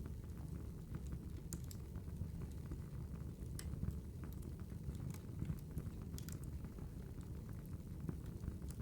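Wood fire crackling: a steady low rush of burning logs with irregular sharp pops and snaps scattered through.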